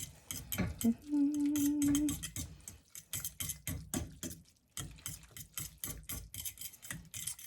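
Metal fork stirring ramen noodle soup in a glass dish, with quick, irregular clinks and scrapes against the glass. About a second in there is a short steady hummed note lasting about a second.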